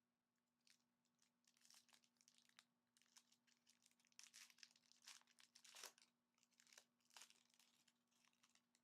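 Faint tearing and crinkling of a trading-card pack wrapper being ripped open and handled, in irregular bursts.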